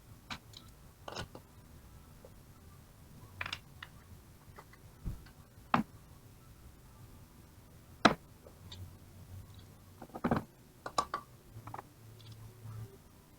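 Irregular clicks and knocks of metal tools and car-alternator parts being handled during bench work, with a few sharper knocks.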